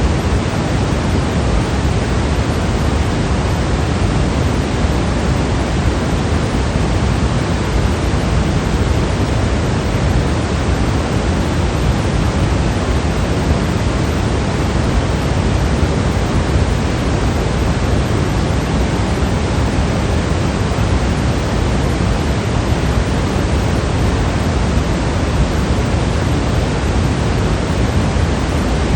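Generated white noise: a steady, unchanging hiss that is fuller in the lows than in the highs.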